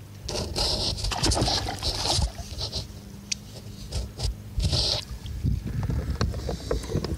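Irregular scuffing, rustling and sharp knocks of handling on a plastic kayak as a speckled trout is landed and lifted from the water, over a low rumble of wind or movement on the microphone.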